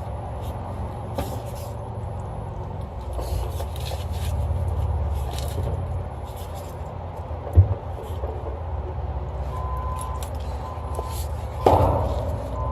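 Handling and work noises: scattered clicks and knocks over a steady low rumble. There is a sharp knock about halfway, then a louder knock with a short ring near the end. From about three-quarters of the way in, a high-pitched beep repeats on and off.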